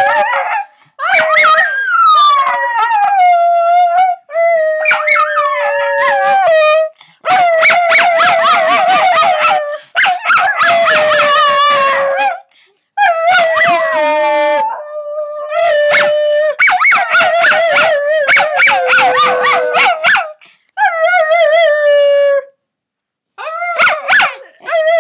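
Puppy howling, a run of about ten long howls with short breaks between them, each mostly sliding down in pitch as it goes.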